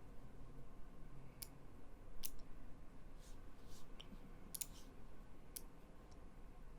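Faint, scattered clicks of a computer mouse, about eight spread irregularly over several seconds, during design work.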